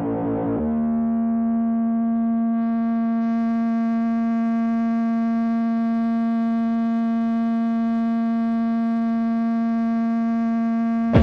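Electronic music: a single held synthesizer drone, one steady buzzy pitch rich in overtones, with no beat under it. A brief noisy swirl fades out in the first half second.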